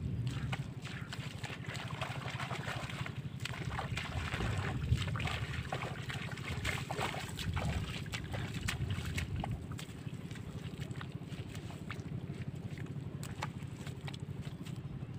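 Wind rumbling on the microphone, with scattered small squelches and clicks of bare feet walking through wet mud, thickest in the middle.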